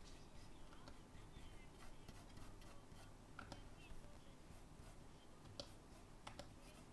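Near silence: room tone with a few faint clicks and light scratches of a stylus on a graphics tablet.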